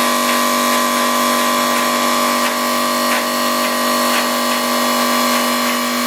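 A steady, loud machine drone made of several fixed tones that hold without rising or falling, with a few faint ticks.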